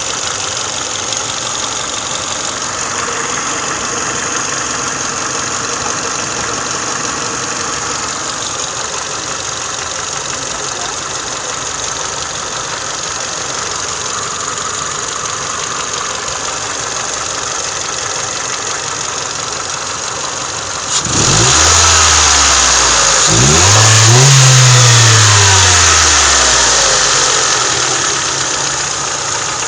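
Car engine idling, then revved twice about two-thirds of the way in, the second rev higher, its pitch sinking slowly back to idle. Running on fresh 5W30 oil, the engine is, by the owner's account, now free of its earlier valve tapping.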